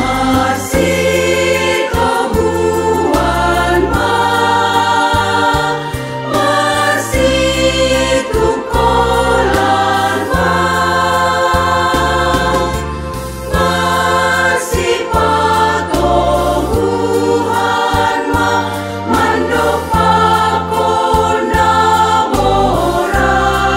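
Women's choir singing a hymn of praise in harmony, over an instrumental accompaniment with a bass line of sustained low notes.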